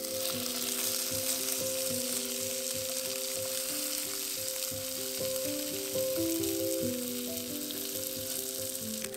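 Whole sea bream frying in hot olive oil with minced garlic: a steady sizzle that starts as the fish is laid in the pan. Instrumental background music plays over it.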